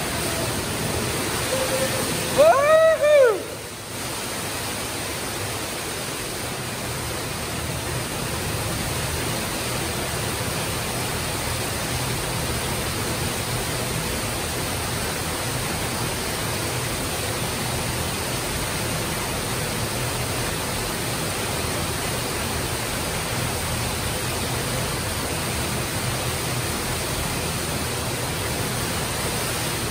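Underground waterfall pouring into a pool, a steady rushing of water. About two and a half seconds in, a brief loud shout, rising and falling in pitch, cuts through it.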